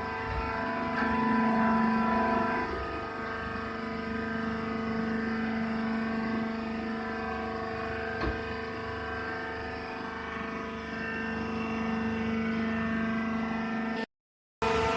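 Hydraulic baler's power unit, an electric motor driving a hydraulic pump, running with a steady hum. A single click about eight seconds in. The sound cuts out for a moment near the end.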